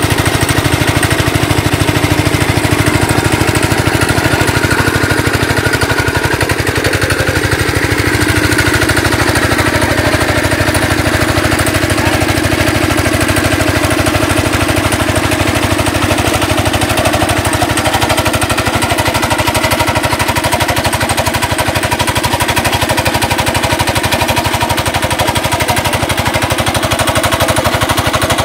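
The small engine of a water pump running steadily with a rapid, even chugging, pumping water out of a fish pond.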